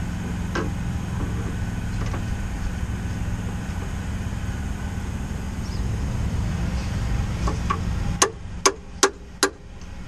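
A hammer strikes a flat screwdriver held against a seized upstream oxygen sensor on the exhaust four times near the end, sharp metallic hits about half a second apart, to shock the stuck sensor loose. A steady low rumble runs underneath before the strikes.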